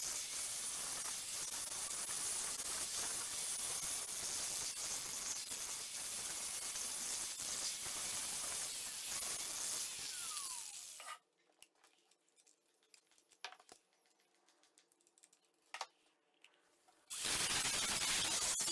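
Angle grinder with a coarse grinding wheel grinding down the bumps on a cast steel anvil's horn, a steady harsh grinding that stops about eleven seconds in with a short falling whine. After a quiet stretch with a few light clicks, the grinder starts again near the end, now smoothing the horn with a flap disc.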